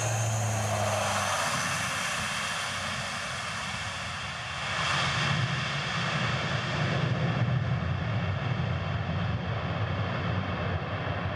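Lockheed C-130J Super Hercules's four turboprop engines and propellers running as it lands on a grass strip. From about five seconds in, as the wheels touch down and throw up dust, the sound grows louder, with a low pulsing underneath.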